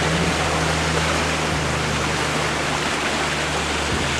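Steady rush of flowing water, an even hiss with a low steady hum beneath it.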